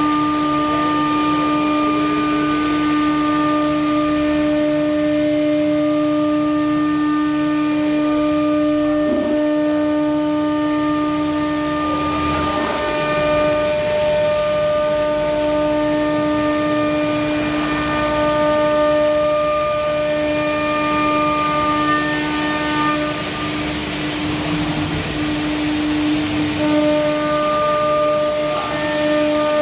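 Spindle of a MUTLUCAM 2128 CNC router running while it cuts, most likely MDF: a loud, steady whine whose higher overtones come and go as the load changes.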